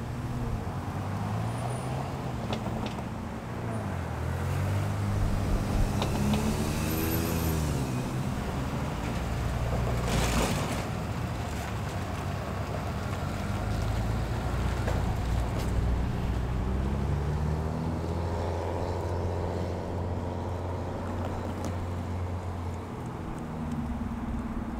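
Road traffic: motor vehicle engines running and passing, their pitch rising and falling, with a short burst of hiss about ten seconds in.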